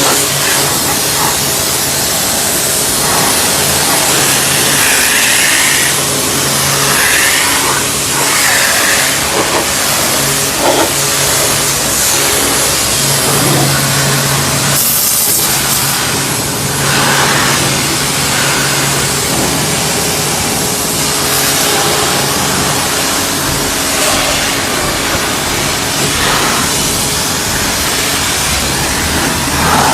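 Total TGT11246 2500 W electric high-pressure washer running: the induction motor and pump hum steadily under the hiss of the water jet.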